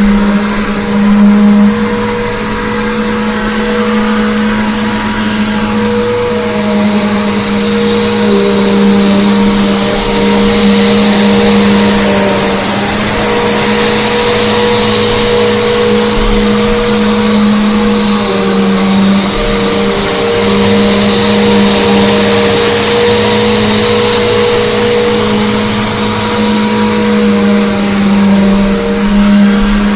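Bissell Big Green Commercial BGU1451T upright vacuum cleaner running steadily, its motor giving a constant hum with a whine over a rush of air. The hiss briefly grows stronger about twelve seconds in.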